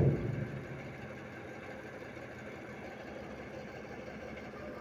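Tipper truck's diesel engine idling steadily while its raised dump body is lowered. A loud sound at the very start dies away within about half a second.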